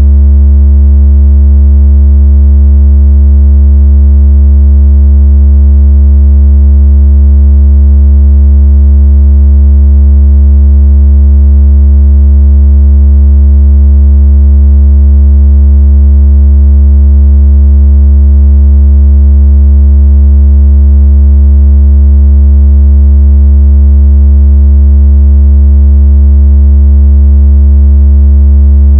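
A loud, deep synthetic bass tone of the kind used to vibrate water out of a phone speaker. It holds steady at one pitch without a break, with a faint buzzy edge from its overtones.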